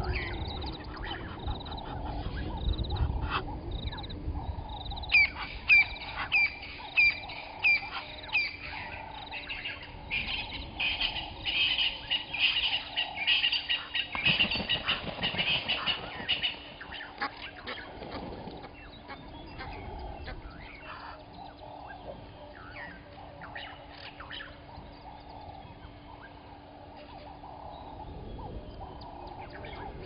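Wild birds calling: sharp high calls repeated about twice a second, then a dense spell of high chattering calls about halfway through, thinning out to scattered calls.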